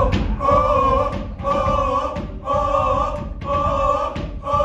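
Voices singing a cappella in the play's song, in five sung phrases of about a second each, with short breaks between them.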